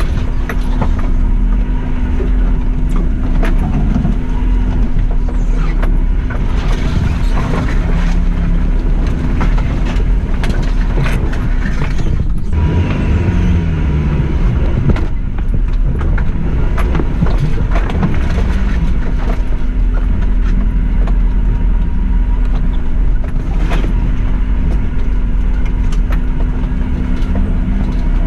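Suzuki Jimny driving slowly over a rough, rocky green lane: the engine runs steadily, rising and falling in pitch briefly about halfway through, while the body and suspension knock and rattle over the uneven ground.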